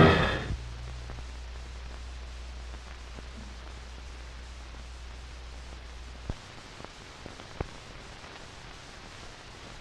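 The last of a brass orchestral chord dying away in the first half second, then the steady hiss and low hum of an old film soundtrack, the hum dropping out about six seconds in, with a few sharp clicks.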